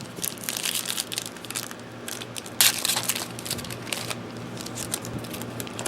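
Foil wrapper of a trading-card pack crinkling and crackling as hands struggle to tear it open, with one loud sharp rip about two and a half seconds in.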